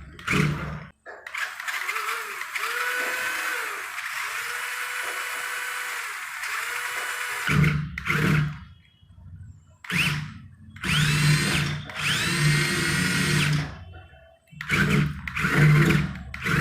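Small electric motor and gearbox of a homemade RC car running in several short bursts. Each burst starts with a rising whine as the motor spins up, with brief pauses between them.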